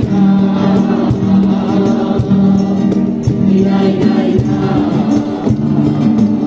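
A group of voices singing a Christmas carol together, accompanied by steady rhythmic hand clapping.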